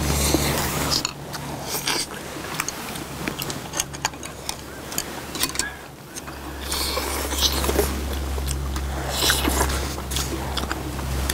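People eating at a table: close chewing, slurping and the clicks of chopsticks and spoons against ceramic bowls. Wind rumbles on the microphone at the start, falls away about a second in, and comes back about six and a half seconds in.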